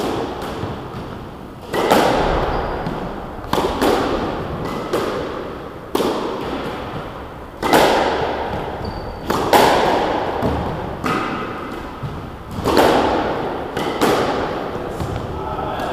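Squash ball cracking off rackets and the court walls in a practice rally, a sharp hit about every one to two seconds, each ringing on in the bare walled court.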